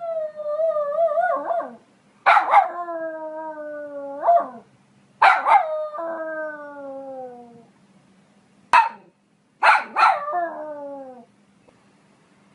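Poodle barking in four bouts, each sharp bark running into a long whining cry that slides down in pitch. One bout is only a single short bark.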